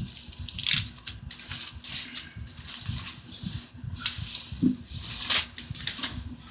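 Packaging being handled: repeated rustling and crinkling, with soft bumps.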